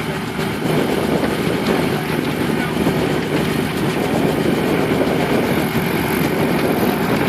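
Helicopter running on the ground, its engine and rotor turning steadily.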